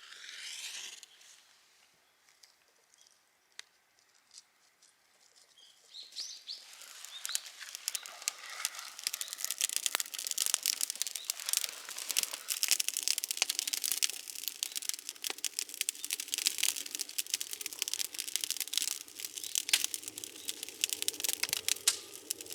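Dense, irregular crackling that starts about six seconds in, grows louder and keeps going.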